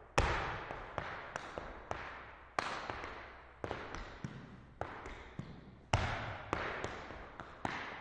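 Irish dance hard shoes striking a hard floor in scattered single beats and quick pairs, each strike followed by a long echoing decay.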